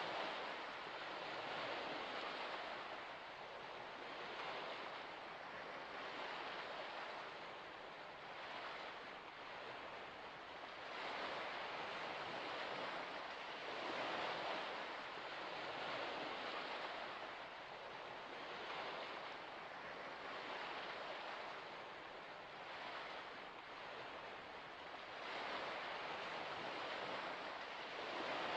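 Wind and small waves on a shallow salt lake: a steady rushing hiss that swells and eases every few seconds.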